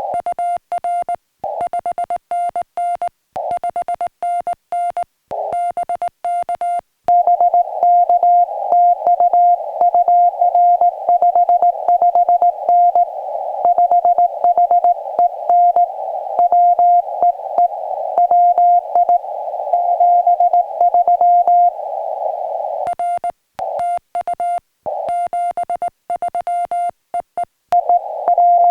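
Morse code (CW) from a portable ham radio: a single steady mid-pitched tone keyed on and off in dots and dashes. For the first several seconds and again near the end it comes with clean silent gaps. In the middle stretch it is louder and surrounded by hiss, like a signal received through band noise.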